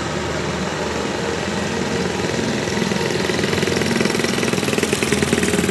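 Combine harvester engine running steadily, with a fast, even pulsing that grows stronger over the second half.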